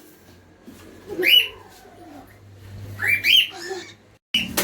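Pet parrot calling twice: two short squawks that rise in pitch, about a second in and about three seconds in. The sound breaks off abruptly near the end.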